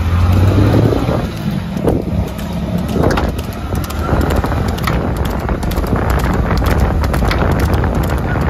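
Wind buffeting the microphone of a vehicle moving alongside, over the low steady hum of its engine, with scattered short knocks and clatter throughout.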